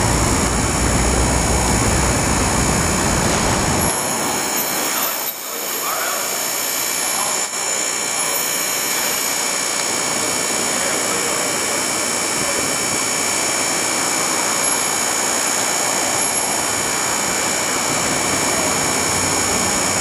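Steady roar of city street traffic noise, with the deep low rumble falling away about four seconds in.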